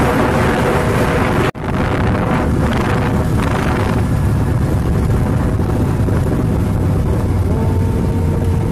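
Wind rushing over the phone's microphone on a motorbike moving at speed along a highway, with vehicle rumble underneath; the sound briefly drops out about one and a half seconds in.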